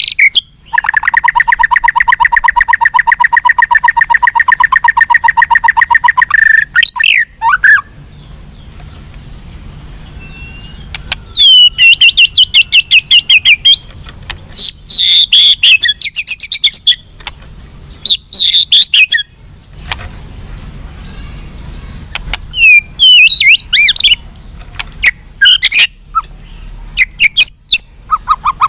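White-rumped shama (murai batu) singing: a loud fast run of repeated notes held for about six seconds, then, after a pause, several short bursts of high, rapidly varied whistled phrases.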